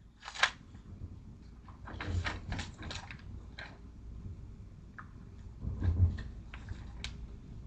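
Scattered clicks, taps and light rustling from something being handled close to the microphone, with a sharp knock about half a second in and small clusters around two and six seconds, over a low steady hum.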